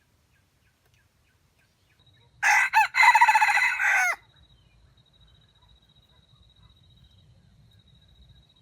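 A rooster crows once, a crow of nearly two seconds with a brief break near its start and a falling end. A faint steady high whine goes on underneath.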